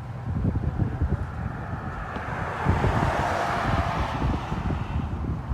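Gusty wind buffeting the microphone with low rumbles, and a rushing noise that swells to a peak about halfway through and then eases.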